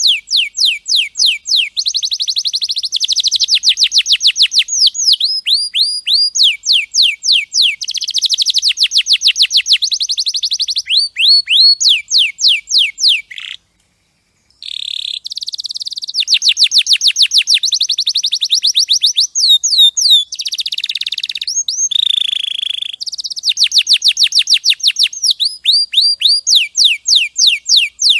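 Domestic canary singing: long runs of rapid, repeated down-sweeping chirps and fast trills, one phrase after another, broken by a second of silence about halfway through.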